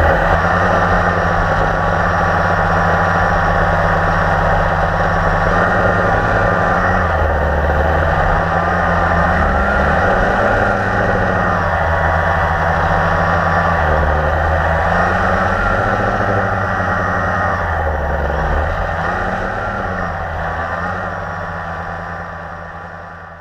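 Blade 350QX quadcopter's electric motors and propellers running, heard from the camera mounted on it, the hum wavering up and down in pitch as the motors keep adjusting their speed. It fades out near the end.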